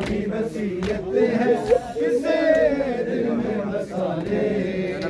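Men's voices chanting a noha, an Urdu Shia lament, in drawn-out wavering tones, with a few sharp thumps.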